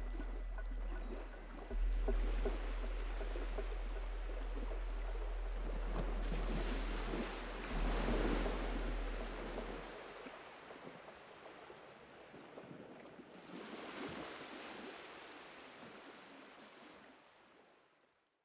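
Ambient soundtrack of rushing, surf-like noise that swells and ebbs twice over a steady low drone. The drone drops out about halfway through, and the rushing fades away to nothing at the end.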